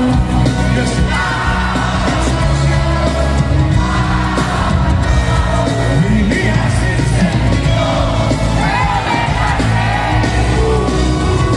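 Live band playing on stage: a man's lead vocal over electric guitar and drums, with shouts and whoops from the crowd, heard from among the audience.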